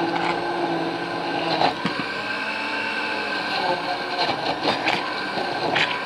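Countertop blender running steadily, grinding a crispy tortilla into a thin salsa, with a few sharp knocks.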